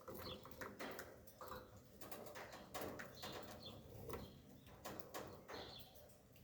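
Faint bird calls, short chirps that come and go, over light clicking and tapping.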